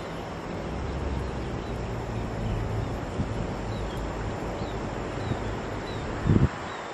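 Wind buffeting the microphone outdoors over a steady low hum, with faint short high chirps in the second half and a single short thump a little after six seconds in.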